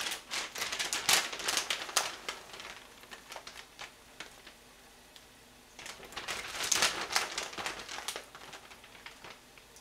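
Crinkly rustling and crackling of dried shrimp being handled and sprinkled into a pot of broth, in two spells: one at the start and one from about six to eight seconds in.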